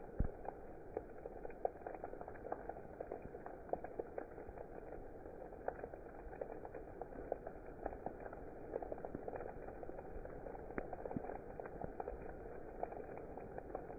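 Steady rain, a dense even patter with many individual drops ticking sharply on top. One low thump sounds just after the start.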